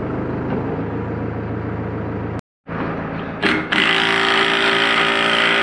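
Farm tractor engine running steadily. After a brief cut, a louder, hissy mechanical noise with a steady tone starts about three and a half seconds in and runs on.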